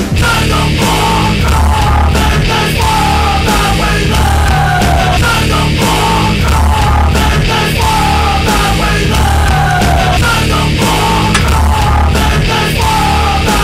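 Loud heavy rock music with a pounding low end and a high falling line repeated over and over.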